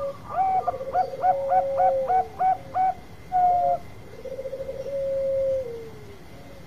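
Zebra dove (Bangkok-type perkutut) singing its long cooing song: a rapid purring trill, a quick run of about seven short coos, then another trill leading into a long held note that falls away near the end.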